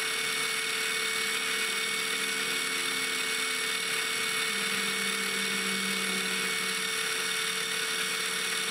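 Benchtop mini mill running steadily with a high whine and hiss, sped up to double speed; a lower hum grows stronger about halfway through.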